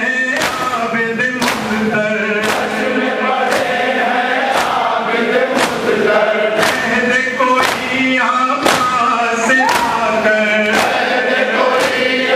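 Shia noha (lament) chanted by a male reciter with a crowd of men singing along. The crowd's matam (hands striking chests in unison) beats a steady rhythm about once a second.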